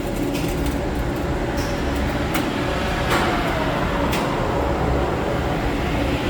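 Elevator traction hoist machine running: a steady mechanical rumble with a few sharp clicks.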